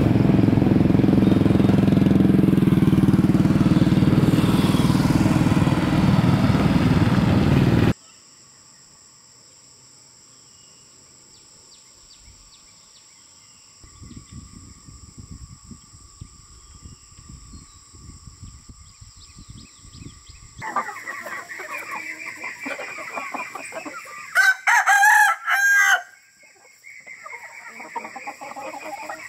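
An engine runs loudly for the first several seconds and cuts off abruptly. Later, chickens cluck, and a rooster crows once loudly about 25 seconds in.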